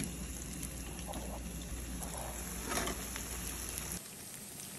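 Pot of chickpeas bubbling under a glass lid, a steady hiss; about four seconds in, a slightly quieter, steady sizzle of pakoras deep-frying in oil.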